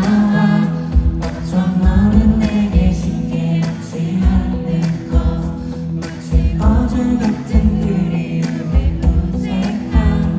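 Live pop ballad: singing over a band with a steady low drum beat.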